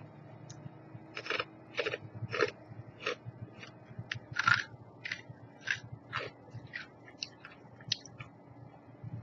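A person chewing a crunchy pea snack with close, crisp crunches at about two a second, starting about a second in and dying away near the end.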